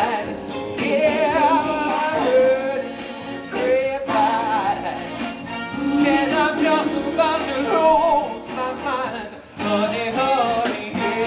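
A singer holding long notes with wide vibrato over instrumental accompaniment.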